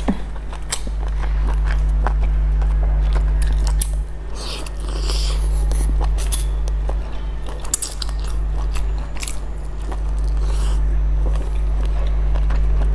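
Close-up biting and chewing of a soft steamed dumpling, with short wet mouth clicks and smacks scattered through, over a steady low hum.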